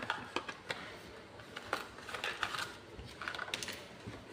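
Handling of a Lego minifigure blind-bag packet: the plastic packet crinkling in short spells, and small plastic Lego pieces clicking.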